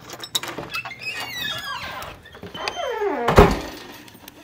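A door creaking on its hinges: a high squeak falling in pitch, then a lower creak sliding down as it swings, ending in a loud thunk as the door shuts about three and a half seconds in.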